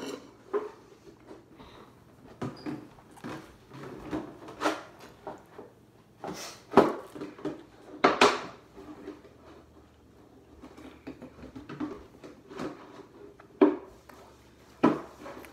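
Kitchen clatter: irregular knocks and clinks, the sharpest ones about 7 and 8 seconds in and again near the end.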